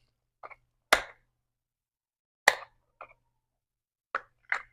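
Sharp plastic clicks from the power switch of a small LED video light being pressed and the light handled: two loud clicks about a second and a half apart, with a few fainter clicks and taps. The light does not come on, as it has no batteries in it yet.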